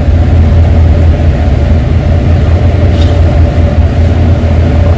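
Steady low rumble of a tanker under way at sea, with a faint steady hum above it.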